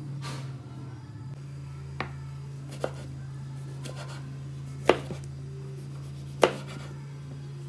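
Kitchen knife slicing through a tomato and knocking on a wooden cutting board: about five separate knocks at uneven intervals, the two loudest about five and six and a half seconds in. A steady low hum runs underneath.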